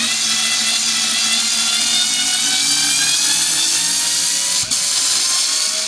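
Ryobi 4V cordless screwdriver running in reverse, backing a Pozidriv screw out of a wooden log. It gives a steady electric-motor and gearbox whine whose pitch creeps slowly upward, with one brief tick near the end.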